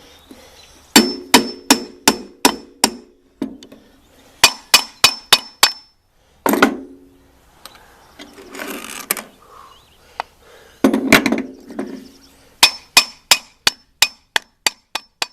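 A hammer tapping on the steel shaft of a snowblower gearbox to drive it out of its bearing. The sharp, ringing metal strikes come in quick runs of about five or six, with pauses between the runs and a short scraping sound about halfway through.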